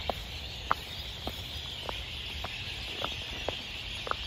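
Footsteps on stone paving at an even walking pace, a little under two steps a second, over a steady high-pitched background chorus.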